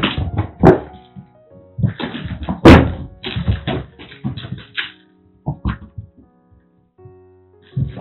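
Thuds, bumps and scrabbling of a white cat and a grey kitten chasing and pouncing on a carpeted floor. The impacts come in bursts with pauses between them, the loudest a little under three seconds in, over soft background music.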